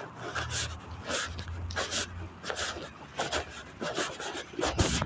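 Footsteps and rubbing, scuffing noise from a handheld phone jostled while walking, in quick repeated bursts about two or three a second.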